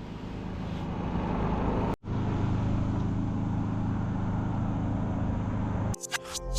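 A steady low motor hum that swells over the first two seconds, breaks off at a sudden cut, then carries on evenly; music comes in near the end.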